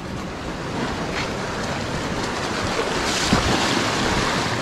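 Sea surf washing and foaming over a rocky shore ledge, swelling louder about three seconds in as a wave rushes across the rock.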